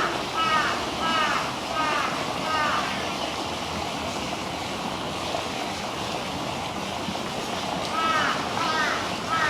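Crow cawing in strings of short, harsh calls, about two a second, at the start and again near the end, over a steady background hiss.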